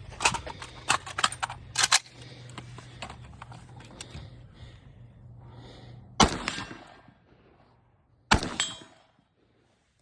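Galil ACE Gen 2 rifle in 5.45×39mm firing: a quick string of shots in the first two seconds, then two more single shots about two seconds apart, each followed by a short echo.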